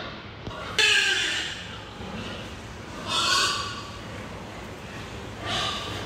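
Domestic pigs in their stalls giving two loud, rough calls, one about a second in and another about three seconds in.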